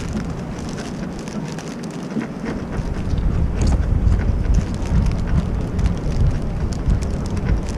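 Wind buffeting the camera microphone over water lapping and pattering against the boat, with many scattered light crackles; the low rumble of the wind grows stronger about three seconds in.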